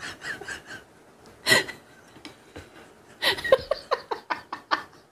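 Two women laughing hard in rhythmic bursts. There is a loud burst about a second and a half in and a longer run of laughter near the end.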